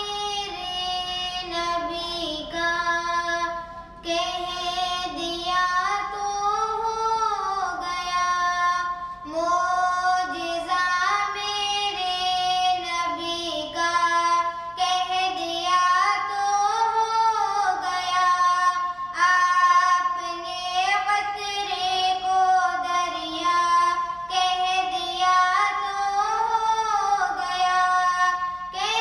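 A young girl singing an Urdu naat solo, an Islamic devotional song, in melodic phrases of about five seconds with short pauses for breath between them.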